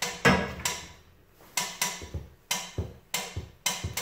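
Hydraulic floor jack being pumped by hand to lift a pickup truck, its handle clunking sharply with each stroke. About eight short knocks, mostly in pairs about a quarter second apart.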